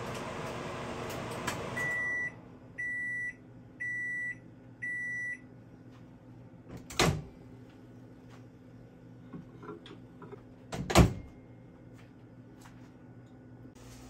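GE over-the-range microwave running with a steady hum that stops about two seconds in as the timer runs out, followed by four long end-of-cycle beeps. A sharp knock about halfway through as the door is popped open, and a louder bang about four seconds later as the door is shut.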